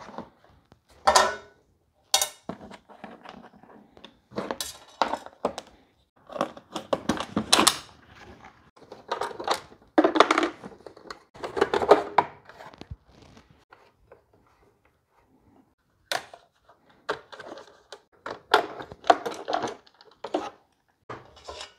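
Hand work on a DeWalt DW735 thickness planer that is not running: irregular knocks, clunks, clicks and rattles of its plastic and metal parts as the top is opened and parts are handled, with a quieter pause about two thirds of the way through.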